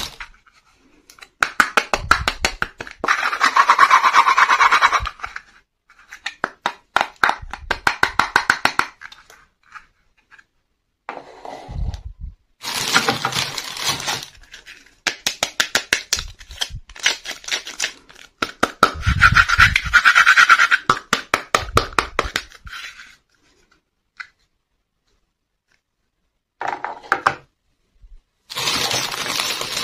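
Clear plastic wrapping crinkling and rustling in bouts of one to three seconds, with light taps and scrapes of small hard-plastic toy furniture pieces being handled. A pause of about three seconds comes near the end.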